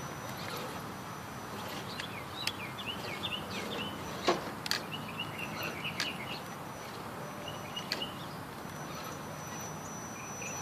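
High, thin whine of an Axial SCX10 RC crawler's electric motor, coming and going in stretches as it is throttled over rocks, with a few sharp knocks; the loudest is about four seconds in. Birds chirp in the middle stretch.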